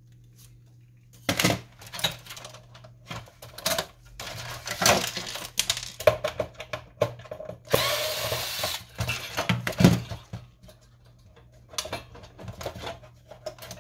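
Small cordless electric screwdriver running briefly, about a second, near the middle, driving out a screw from a printer's metal chassis. Around it come scattered knocks and clatters of plastic and sheet-metal printer parts being handled.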